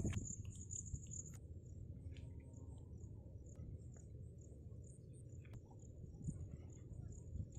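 Insects trilling in a steady high-pitched chirr, over a low steady rumble, with a few faint clicks.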